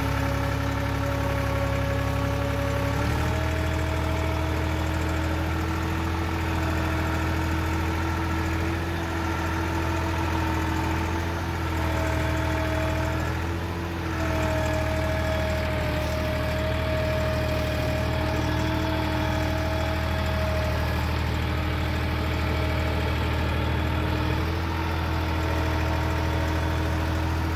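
Massey Ferguson 260 tractor's three-cylinder diesel engine running steadily while the tractor is driven. Its pitch steps up slightly about three seconds in, dips briefly around halfway, and settles a little lower near the end.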